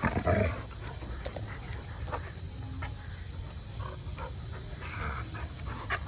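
An animal's short, rough call right at the start, with fainter scattered animal noises after it, over a steady high-pitched buzz.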